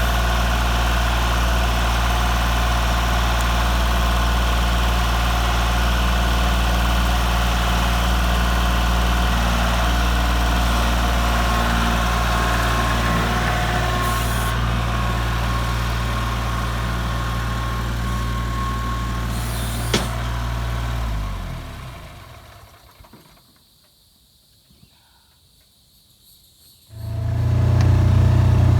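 A vehicle engine idling steadily, with one sharp click about twenty seconds in. The engine sound then fades away to near silence for a few seconds, and steady engine noise comes back abruptly near the end.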